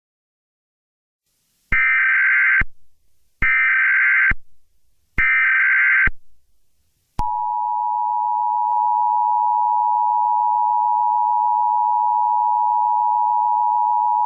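Emergency Alert System SAME header: three short bursts of digital data tones, each just under a second long and spaced about a second apart. About seven seconds in, the EAS two-tone attention signal starts, a steady loud dual-tone alarm.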